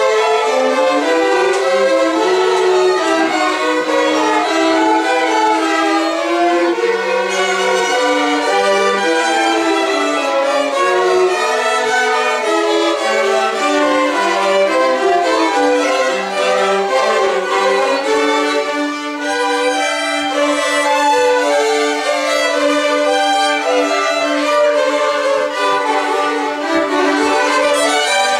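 A small ensemble of violins playing a gavotte together, several parts bowing in step. In the second half one lower part holds a long sustained note under the moving melody.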